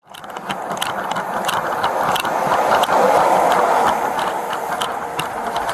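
Footsteps and equipment on a body-worn camera clicking and rattling, two to three times a second, over a steady noise that grows louder about halfway through.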